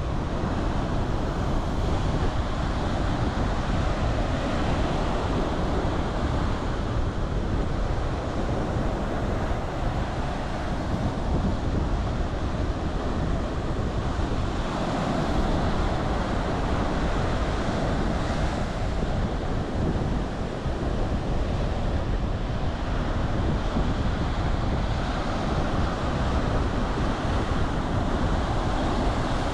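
Indian Ocean surf breaking and washing up a sandy beach: a continuous rush of foam and water that swells and eases as the waves come in.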